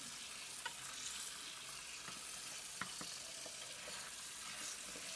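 Faint steady hiss with a few light clicks and taps, like small kitchen handling sounds.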